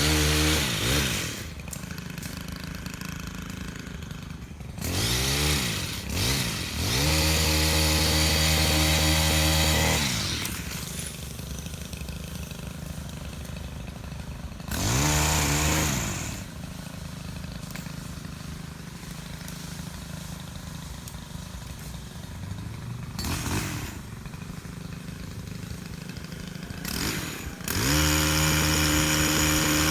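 Chainsaw engine idling and revving: it rises to full throttle about five seconds in and holds for a few seconds, revs briefly again around fifteen seconds and once more near twenty-three, then goes back up to full throttle near the end, settling to a steady idle in between.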